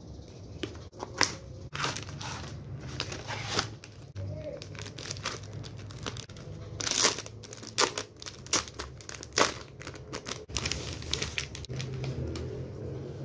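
Clear plastic packaging crinkling and rustling in quick, irregular crackles as a fabric diary is slid out of its cardboard box and unwrapped.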